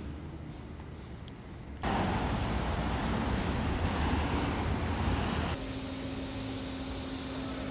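Outdoor street ambience with traffic noise that changes abruptly twice. It becomes much louder and fuller for a few seconds in the middle, then drops back with a steady low hum running under it.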